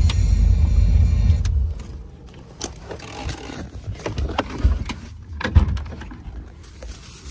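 C4 Corvette's V8 rumbling in the cabin, dropping away after about a second and a half. Then a string of sharp clicks and knocks from handling the interior, the loudest about five and a half seconds in as the inside door handle is worked.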